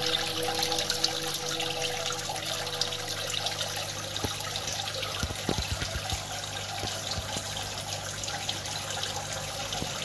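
Small aquarium waterfall spilling from the upper tier into the tank below: a steady splashing trickle with small splashes. A faint low hum from the aquarium's water pump runs under it.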